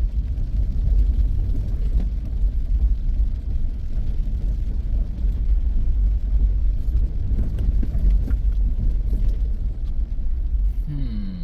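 Vehicle driving slowly on a gravel logging road: a steady low rumble of engine and tyres on gravel.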